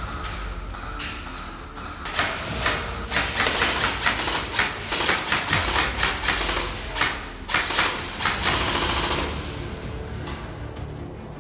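Airsoft guns firing: single sharp clacks and quick strings of shots, thickest from about two to nine seconds in.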